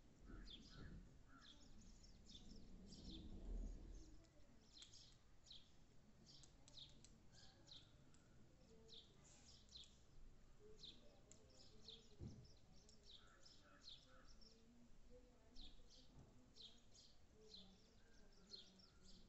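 Sparrows chirping faintly: short, high chirps repeated in quick runs all the way through.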